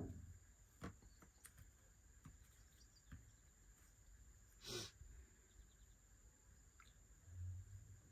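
Near silence: quiet room tone with a faint steady high tone, a few faint small clicks, a short soft hiss about five seconds in and a low dull thud near the end.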